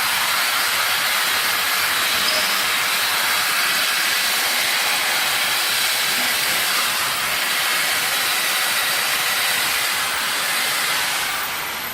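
Compressed air hissing steadily and loudly in a workshop, easing off near the end as a high whine falls in pitch.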